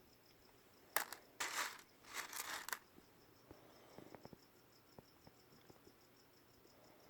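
A crinkling rustle lasting about two seconds as the opal parcel is handled, followed by a few light clicks of small pieces of rough opal being moved about, over a faint, steady high chirping in the background.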